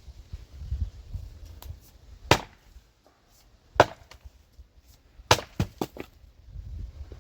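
Axe chopping firewood: three sharp chops about a second and a half apart, the third followed quickly by a few lighter knocks.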